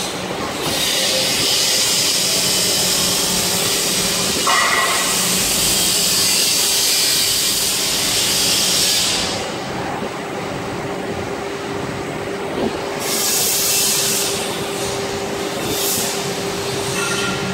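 CNC drilling machine running: a steady motor hum under a loud high hiss that lasts about nine seconds, drops away, then comes back in two short spells near the end.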